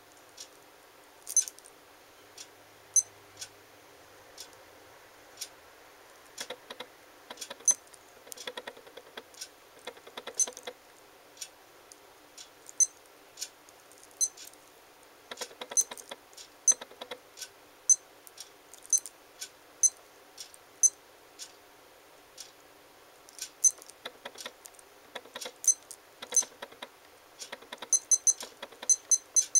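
Button presses on a WEIDE digital LED sports watch, each press giving a click and a short high beep, spaced irregularly. In the last couple of seconds the beeps come in a fast run, the watch's alarm starting to sound.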